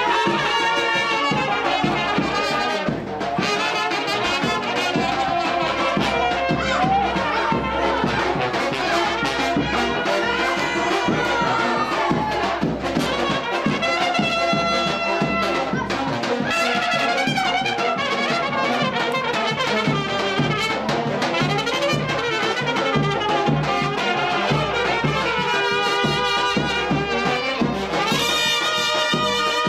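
Brass band playing a lively tune, trumpets carrying the melody over a steady lower brass part, with bright held high notes near the end.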